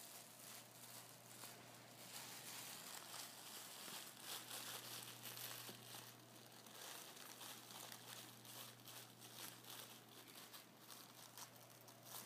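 Faint crinkling of a thin plastic supermarket bag as a cat licks and noses into it, in many short irregular crackles, over a faint steady low hum.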